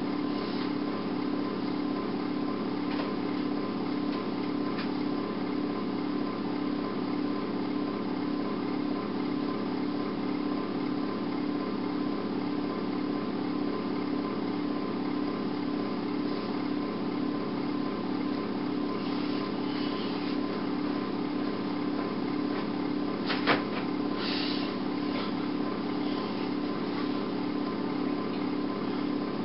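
Steady machine hum that holds one level throughout, with a few faint ticks and one sharp click about three quarters of the way through.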